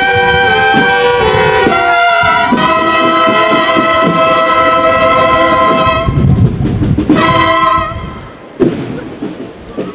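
Brass band playing a processional piece, the brass holding sustained chords and ending on a long chord that cuts off about six seconds in. A short chord follows about a second later, then a couple of sharp thumps near the end.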